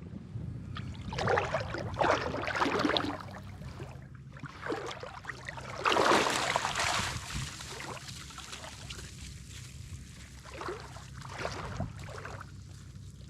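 Small dinghy under way on the water: a steady low hum, with water splashing and rushing against the hull in several loud bursts.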